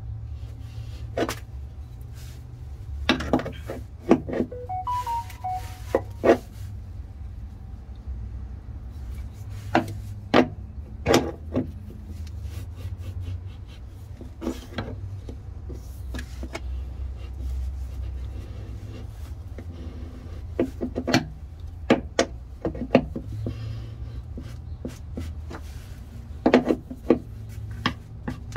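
Scattered metal clicks, taps and knocks of an EZ oil drain valve being threaded onto a drain-plug adapter in a truck's oil pan and tightened with a wrench, over a steady low hum.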